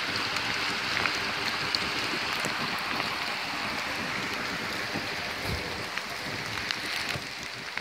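Steady rushing hiss of a rain-swollen, flooded creek mixed with falling rain, with scattered faint ticks.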